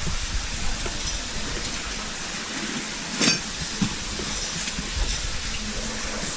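Steady rushing of falling water echoing in a cave, with a single sharp knock about three seconds in.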